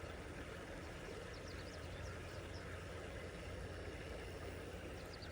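Steady low rushing noise of outdoor riverside ambience, with a few faint high chirps.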